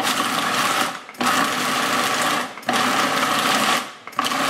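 Food processor motor pulsed on and off four times, each run about a second long, chopping and mixing a thick mixture of beans, vegetables, oats and breadcrumbs.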